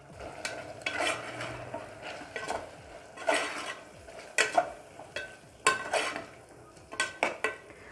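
Metal spoon stirring chunks of mutton in thin masala gravy in a pressure cooker, scraping and clinking against the pot in irregular strokes, some leaving a brief metallic ring.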